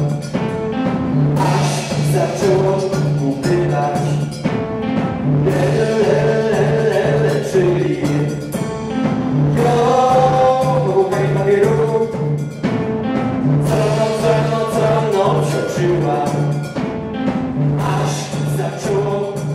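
Live band music from electric guitar, drums and keyboard, with a low note pulsed in a repeating rhythm that pauses every few seconds. A voice sings a melody over it.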